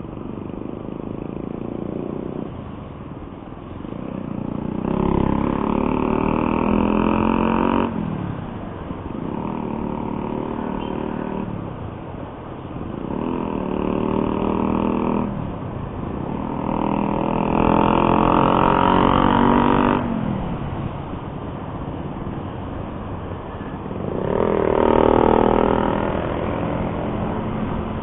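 Road-vehicle engines on a busy highway, heard from a riding motorcycle. The engine roar swells and fades in about five surges of a few seconds each, and on some of them the pitch drops as the surge ends.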